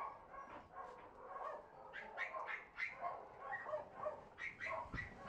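A dog whining and yipping in short, repeated high calls, coming more often from about two seconds in.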